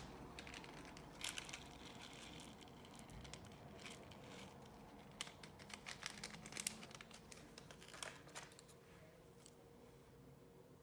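Thick, glossy slime being squished and stretched by hand, giving faint, scattered crackles and small clicks that come thickest past the middle.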